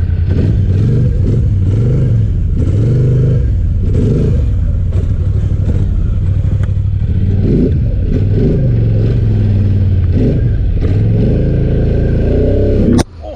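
Polaris Sportsman High Lifter 850's parallel-twin engine revved in repeated bursts, its pitch rising and falling, as the ATV is worked through a rough, muddy stretch. The sound cuts off abruptly near the end.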